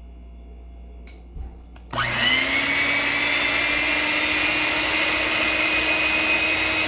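Proctor Silex electric hand mixer switched on about two seconds in, its motor whining up to speed within a moment and then running steadily as the beaters whip fresh cream.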